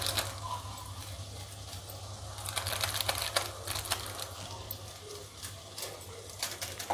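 A wooden spatula stirs and scrapes frying masala in a nonstick kadhai, with a steel spoon tapping against the spatula. It makes an uneven run of quick taps and scrapes, thickest about halfway through, over a low steady hum.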